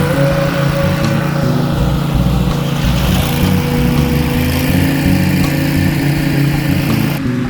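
A small engine running steadily, with a rushing hiss that cuts off shortly before the end.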